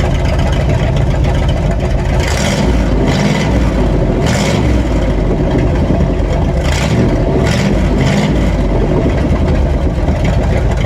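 1958 Chevrolet Apache pickup engine running loud and steady after a plug cleaning and regap, its exhaust open because the cherry bomb muffler section is missing. Several brief bursts of hiss rise over it in the middle.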